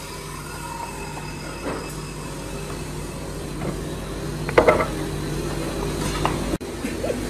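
Workshop machinery running with a steady hum, and a short clatter of knocks about four and a half seconds in.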